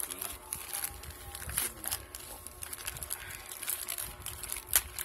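Plastic courier mailer bag crinkling and rustling as it is handled and torn open, with irregular crackles and one sharper snap near the end.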